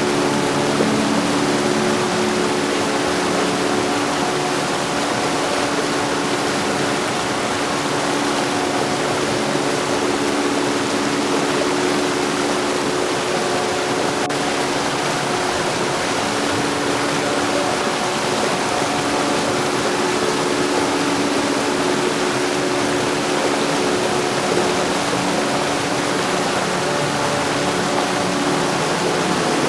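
Heavy rain falling steadily, an even hiss with no thunder and no change in level, and a few faint steady tones beneath it.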